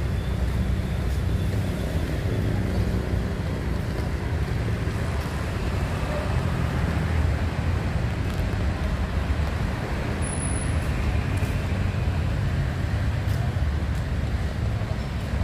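Steady road traffic noise of passing cars and motorbikes, with a constant low rumble.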